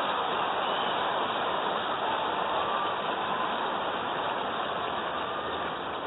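Steady crowd noise filling a tennis stadium between points, an even wash of sound that eases slightly, with no ball strikes.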